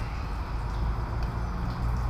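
Steady low rumble under an even hiss, with a couple of faint ticks.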